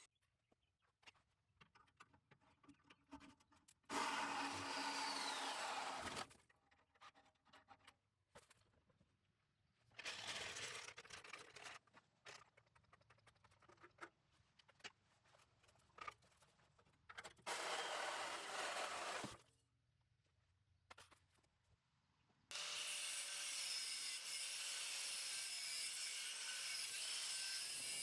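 A power tool run in three short bursts of about two seconds each, with light clicks and knocks between, then running steadily for the last few seconds, likely working on the rusted exhaust pipe.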